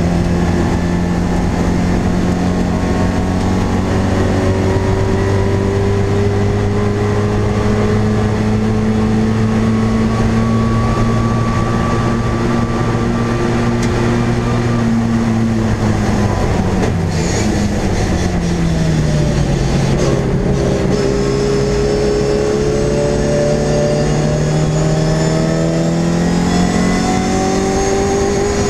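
MG Midget race car's engine heard from inside the stripped cockpit, running hard with its pitch slowly climbing, dropping away about sixteen seconds in, then climbing again.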